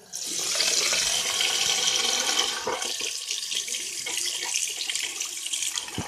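Hot water running from a tap into a small cup; the flow starts suddenly and is loudest over the first couple of seconds, then eases a little.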